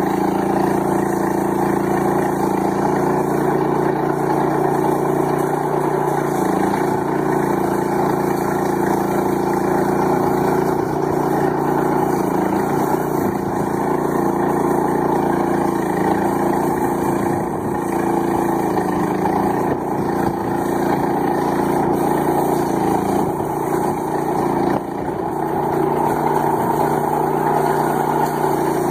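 MCA 600 portable circular sawmill cutting through a large log: its 13 hp engine runs steadily under load while the blade rips the wood. The engine note shifts a few times as the load changes, with a brief dip near the end.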